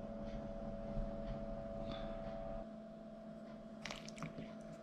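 Steady room hum with a low and a higher tone, dropping in level about halfway through. Near the end, a few light clicks of a metal fork against the crab shell and plate.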